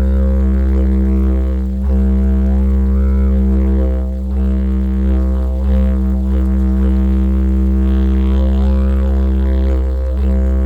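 Didgeridoo playing a continuous low drone, its overtones sweeping up and down as the player's mouth shapes the sound, with short dips about two and four seconds in.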